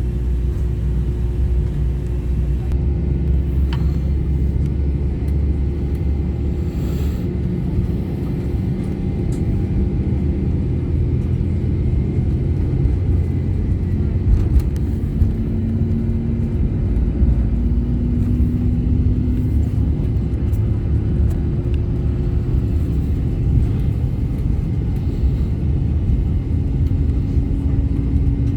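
Airbus A319 cabin noise on the ground: a steady low rumble of the jet engines and the aircraft rolling, with a faint engine tone climbing slowly in pitch over the second half.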